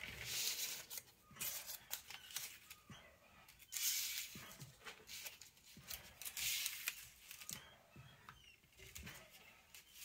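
Parchment paper squares rustling and crinkling in short irregular bursts as they are handled and laid on a perforated metal pan, with light taps and clicks between them.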